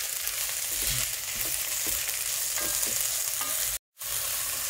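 Chopped mushrooms and vegetables sizzling in ghee in a pot while a wooden spatula stirs them, with light scrapes and knocks against the pot. The sound cuts out completely for a moment near the end.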